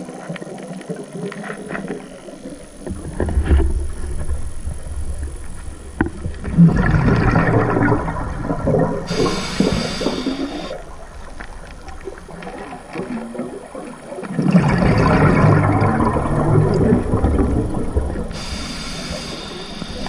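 Scuba diver breathing through a regulator, heard underwater: two long bubbling, gurgling exhalations, each followed by a short hissing inhale.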